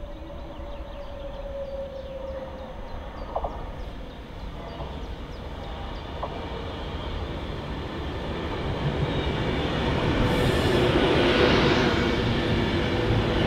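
Virgin Class 390 Pendolino electric train running into the station. Its wheel-on-rail and running noise builds steadily and is loudest in the last few seconds as the coaches pass close by.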